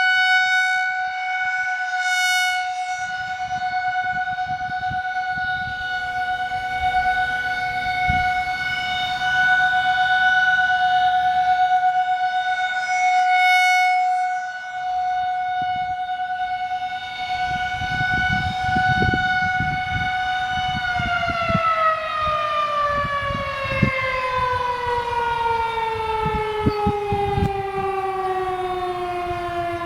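Federal Signal 2001-SRNB rotating outdoor warning siren sounding its steady Alert tone. The level swells and fades as the rotating head turns. About two-thirds of the way through the siren winds down and its pitch glides steadily lower as the three-minute Alert cycle ends. A low rumbling noise runs underneath.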